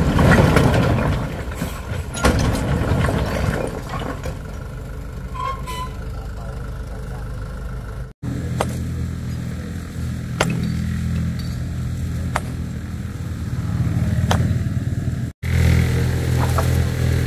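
A small engine running at a steady low pitch, with occasional sharp clicks over it; the sound drops out abruptly twice.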